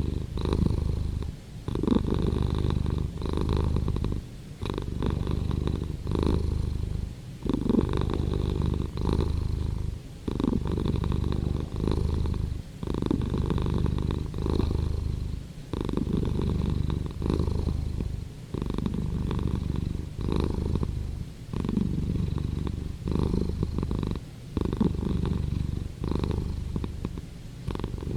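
Domestic cat purring, a steady low rumble that goes in cycles of a couple of seconds with a brief dip between breaths.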